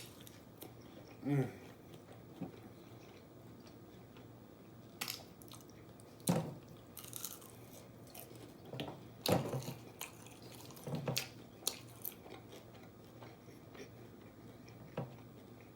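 A person biting and chewing crunchy deep-fried chicken strips close to the microphone: irregular crunches and wet mouth clicks, with a short hum about a second in.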